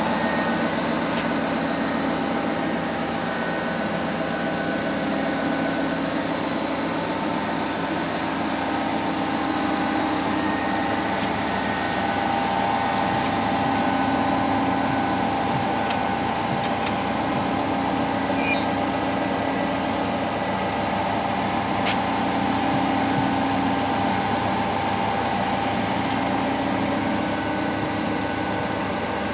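Estarta 301 CNC centerless grinder running: a steady mechanical hum with a thin high whine that steps up in pitch about halfway through, and a couple of faint clicks.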